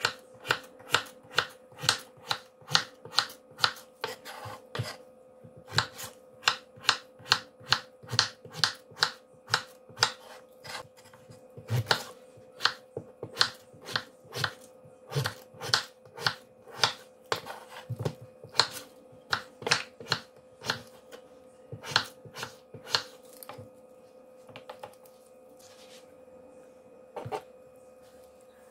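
Kitchen knife chopping peeled potatoes into cubes on a wooden cutting board: sharp knocks of the blade striking the board, about two to three a second, thinning out to a few scattered knocks near the end.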